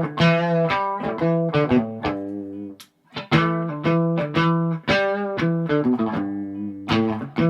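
Gibson Custom SG electric guitar played through an amplifier, picked single notes and chords several a second, heard as it sounds before a setup. The playing stops briefly about three seconds in, then carries on.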